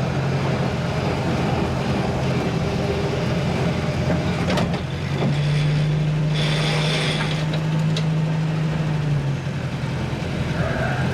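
A motor vehicle's engine running steadily with a low, constant hum. Its pitch steps up slightly about five seconds in and drops back about four seconds later.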